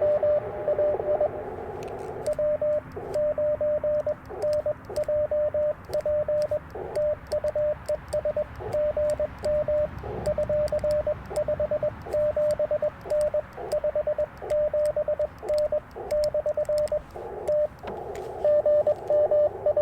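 Morse code tones at one steady pitch from an Icom IC-705 transceiver. For the first two seconds a station's code comes through a narrow band of static; then for about sixteen seconds the operator sends, a clean keyed sidetone with light clicks from the Bamatech paddles; near the end the static and received code return.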